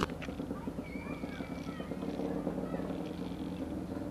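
Suspended wooden steps and ropes of a high ropes course rattling and creaking as a climber steps across them, with faint chirping calls in the background.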